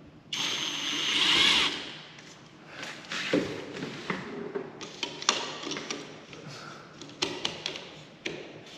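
Power drill running for about a second and a half, getting louder before it stops. Scattered clicks and knocks follow.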